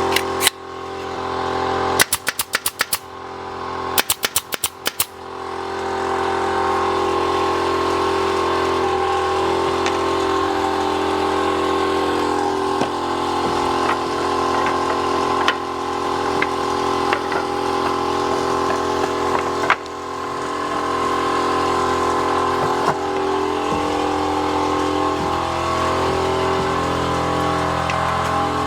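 Workshop machine running with a steady, pitched hum. Just after the start it drops, and two quick runs of sharp clicks come about two and four seconds in. It then builds back up to full running. It is loud enough for the operator to call it noisy.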